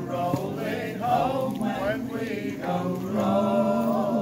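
A group of voices singing unaccompanied, a folk-style ballad, ending on a long held note.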